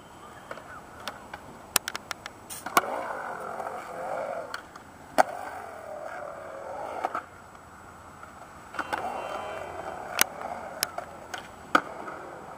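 Skateboard wheels rolling on concrete, the rolling noise swelling and fading as the rider moves through the park. It is broken by several sharp clacks of the board and trucks on the coping and concrete, most of them in the first three seconds and a few more near the end.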